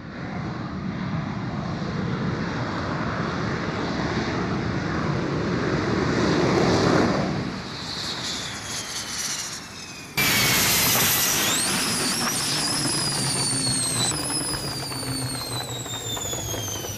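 F-16 fighter jet's engine running on the runway, building to a peak and then easing. About ten seconds in, a sudden louder stretch begins, with high whining tones that glide steadily down in pitch.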